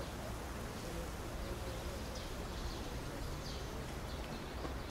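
Quiet outdoor ambience: a steady low rumble of background noise with faint bird chirps now and then.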